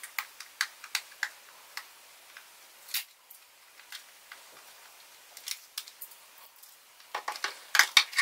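Hand-opened packaging of a Hoya UV lens filter: plastic and cardboard crackling and clicking as the wrapper, box and filter case are handled. There is a quick run of sharp clicks in the first second or so, scattered single clicks through the middle, and a dense burst of clicks near the end as the filter case is opened.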